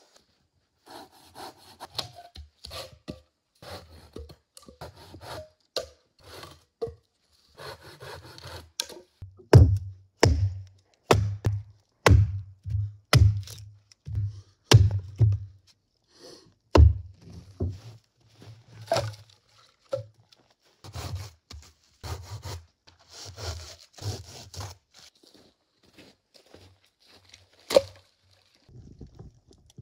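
Hatchet splitting firewood on a wooden chopping stump: a run of sharp wooden chops, about two a second, through the middle, with quieter knocking and rasping of wood before and after. One sharp knock of wood near the end.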